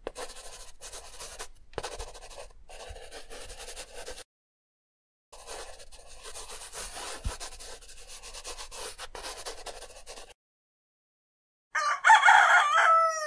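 Marker pen scratching across a drawing surface in two long stretches with a short pause between, then a rooster crowing loudly near the end.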